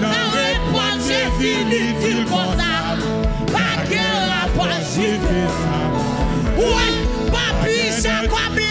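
Live gospel worship music: a woman sings with a wavering, ornamented voice through a microphone over a band keeping a steady beat.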